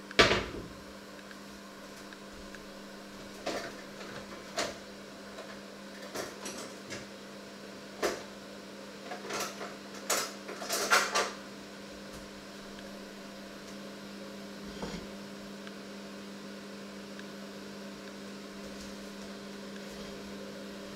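Scattered knocks and clinks of kitchen pots, dishes and utensils being handled, the loudest right at the start and a quick run of them about ten seconds in, over a steady electrical hum.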